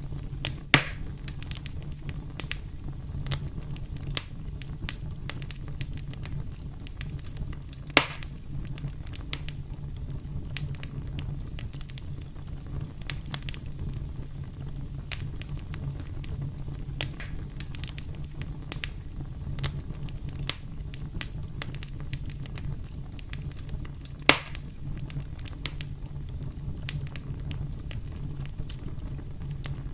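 Campfire burning with a steady low rumble and frequent crackles, with three louder pops: near the start, about eight seconds in, and about 24 seconds in.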